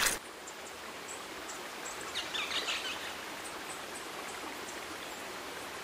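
Steady rush of river water flowing, with a few faint bird chirps about two seconds in.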